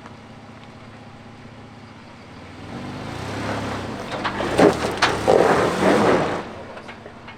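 An off-road vehicle's engine runs low, then about two and a half seconds in it revs up under load as the vehicle crawls over rock. A louder stretch follows, with a couple of sharp knocks, before it eases back near the end.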